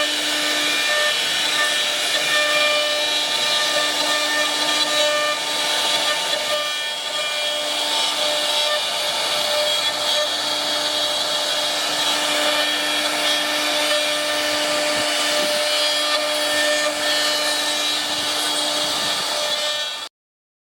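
CNC router spindle cutting wood: a steady high whine over cutting noise, with the tones wavering as the tool works. The sound cuts off suddenly near the end.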